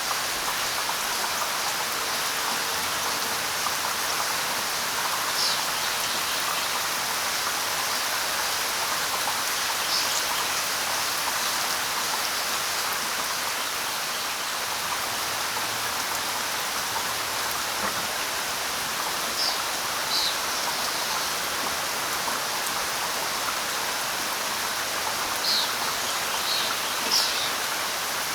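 Steady light rain falling on leaves, an even hiss, with a few short high bird chirps now and then and several near the end.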